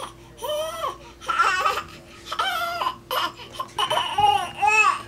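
Infant laughing in a string of about six high-pitched, squeal-like bursts, each rising and falling in pitch.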